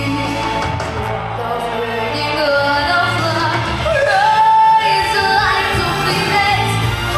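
A female singer singing a song over an instrumental backing track, holding one long note about four seconds in.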